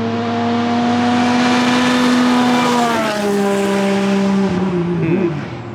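Off-road race car passing at speed on a gravel road, its engine note holding steady over tyre and gravel noise, then dropping in pitch about three seconds in as it goes by and falling away near the end.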